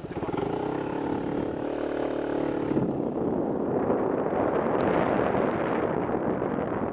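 Motorcycle engine running steadily as the bike moves off; about three seconds in, wind rushing over the helmet-mounted microphone takes over and grows louder as it picks up speed.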